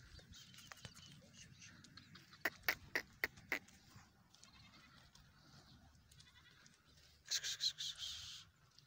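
A small farm animal bleats once near the end, for about a second, with a wavering sound. A few seconds earlier comes a quick run of about five sharp clicks.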